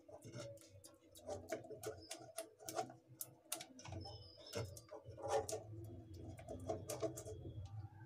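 Silicone spatula stirring thick hot sugar syrup in an aluminium saucepan, giving faint scraping and many light ticks against the pan.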